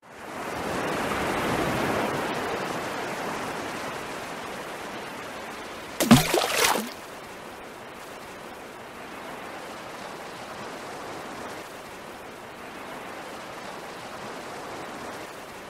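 Steady rushing noise like flowing water, swelling in over the first two seconds and then slowly fading, with one short loud burst of sound about six seconds in.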